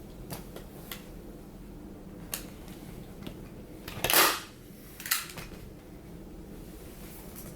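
Clicks and snaps from working on an armrest lid while stapling a leather cover onto it: a few light clicks, a louder sharp snap about four seconds in and another about a second later.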